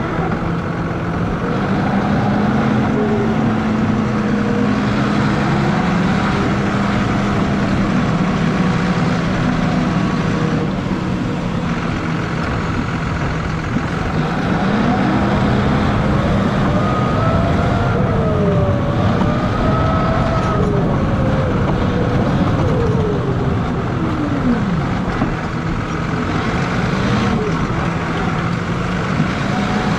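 John Deere 6155R tractor's six-cylinder diesel engine running steadily while the tractor pushes snow with a front-mounted plow. Around the middle, a whine rises and falls in pitch for several seconds as the tractor turns and repositions.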